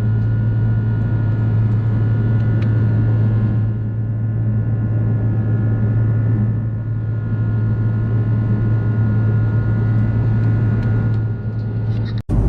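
Steady in-flight cabin drone of an Airbus A330-300 with Rolls-Royce Trent 700 engines: a deep constant hum with faint steady whining tones above it. It cuts off abruptly near the end.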